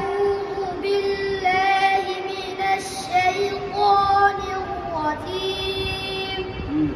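A boy's voice reciting the Quran in a melodic, sung style, drawing out long held notes that shift in pitch only now and then.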